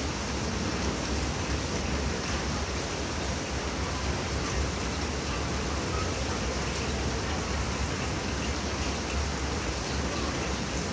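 Steady rain together with the rush of the flooded Bagmati River: a constant, even noise with no breaks.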